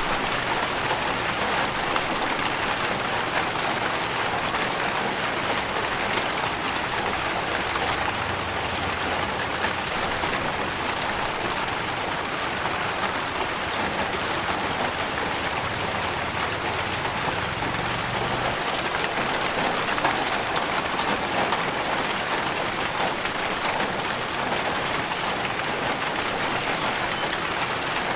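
Steady rain falling, with individual drops ticking close by.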